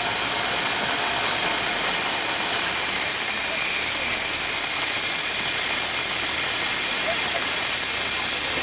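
Steady high hiss of steam escaping from a Darjeeling Himalayan Railway steam locomotive.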